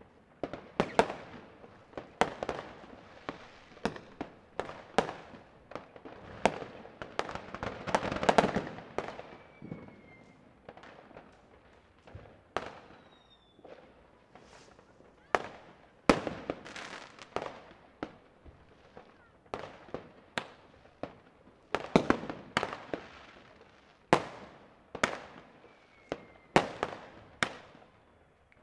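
New Year's fireworks and firecrackers going off: irregular sharp bangs, a second or so apart, each trailing off in an echo, with a denser stretch of crackling about eight seconds in and a few faint short whistles.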